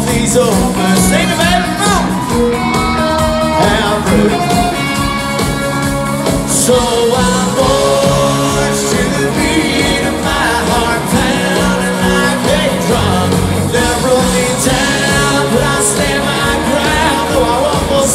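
Live country band playing loud and amplified, with electric guitars, drums and fiddle, and a lead vocal singing over them, heard from the crowd in a large hall.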